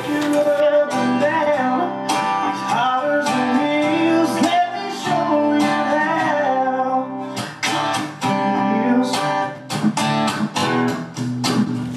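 Background music: strummed acoustic guitar with a singing voice.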